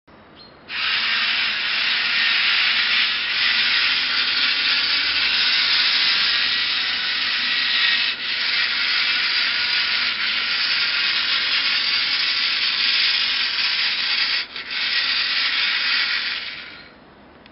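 Small electric gearmotors of a homemade robot built on an old RC car, whirring steadily while it drives. There are brief breaks about eight seconds in and again about fourteen and a half seconds in, and the sound stops near the end.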